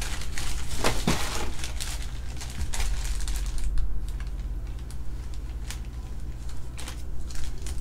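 Thin plastic bag crinkling and crackling in irregular bursts as hands crumple it and pull it open.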